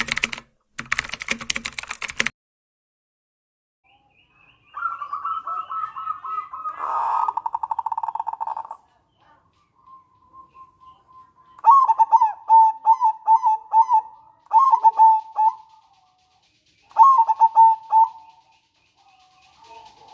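Zebra dove (local perkutut) calling: a rapid rattling trill for about four seconds, then three bursts of quick, stuttering coo notes. A short burst of hiss-like noise comes about a second in.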